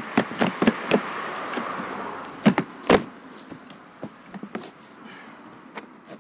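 Large cardboard box being opened: packing tape slit and torn and the flaps pulled back, with a run of sharp cardboard clicks and rustling, two louder knocks about two and a half and three seconds in, then softer rustling of the packing.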